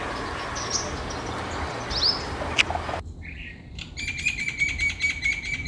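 Backyard birds calling: short sweeping high chirps over garden background noise. About three seconds in the sound changes abruptly to a fast, even pulsing trill with a steady high tone, which ends suddenly.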